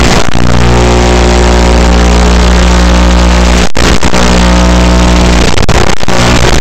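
Loud, steady electrical buzz: a low hum with its overtones over a strong hiss, the kind of noise an analog FPV video receiver's recording picks up on its audio track. It cuts out for an instant a little under four seconds in and flickers a few more times near six seconds.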